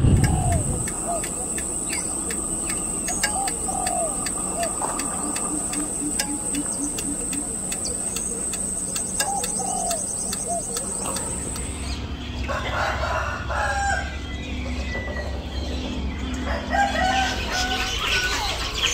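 Chickens and roosters clucking and crowing, with small birds chirping. For roughly the first two-thirds a steady high-pitched whine runs underneath; after that it stops, a low rumble comes in and the calls grow busier.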